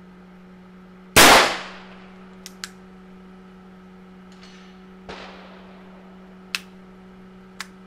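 A single loud shot from a Nagant M1895 revolver firing 7.62 Nagant about a second in, with a ringing tail. A few light clicks and a much fainter bang about five seconds in follow, over a steady low hum.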